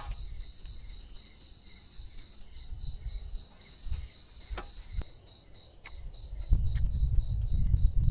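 An insect, most likely a cricket, chirping steadily at a high pitch, about three chirps a second, with a few sharp clicks midway. A loud low rumble sets in near the end.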